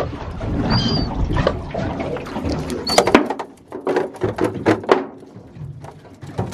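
Freshly caught kahawai flapping in a plastic bin, a quick run of slaps and knocks against the plastic about halfway through, with a few short high squeaks early on.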